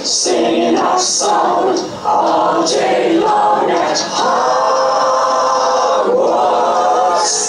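Several voices singing a chant together a capella, with sharp hissing 's' sounds and a long held chord from about four to six seconds in.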